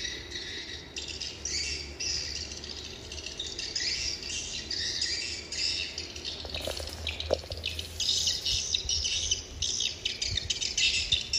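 Swiftlet calls: rapid, high twittering chirps in repeated bursts, without a break, the lure call used to draw swiftlets to a nest house. A faint steady low hum runs underneath.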